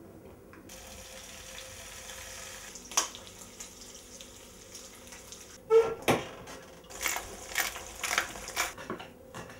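Eggs frying in a pan on a gas stove: a steady hiss, a sharp click about three seconds in, then a loud crack near six seconds and bursts of crackling sizzle toward the end.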